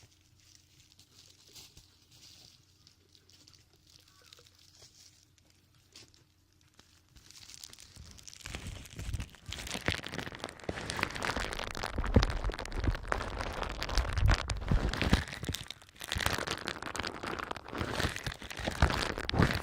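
Faint fingertip rubbing and scratching at a binaural microphone's ear. About seven seconds in, this gives way to loud, crackly rustling of an ear cover pressed and rubbed over the microphone's ear.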